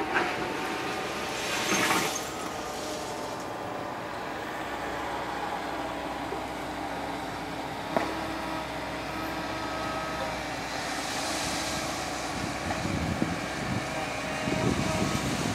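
Steady hum of heavy construction machinery running at a distance, with a short hiss about two seconds in and a single click near the middle.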